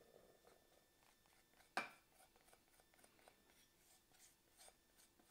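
Near silence with a few faint light clicks and one sharp knock just under two seconds in: kitchen utensils and containers being handled while dough ingredients go into a Thermomix mixing bowl.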